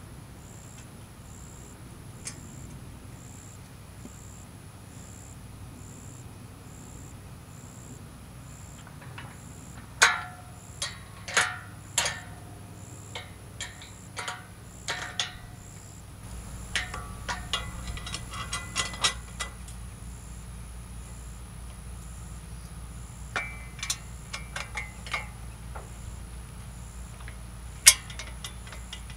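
Scattered sharp clicks and metal knocks from solar tracker parts being handled and fitted, coming in clusters, with the loudest single knock near the end. Under them a steady low hum and a faint high chirp repeating about twice a second.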